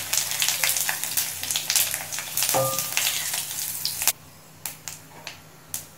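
Whole cumin seeds and bay leaves sizzling and crackling in hot mustard oil in an aluminium kadai, the tempering (phoron) for a curry. The sizzle drops away suddenly about four seconds in, leaving a few light clicks of a metal spatula stirring in the pan.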